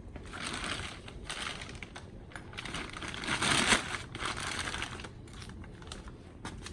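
Rubber exhaust hangers being worked along their metal hanger rods: a run of scraping, rubbing noises, loudest about three and a half seconds in.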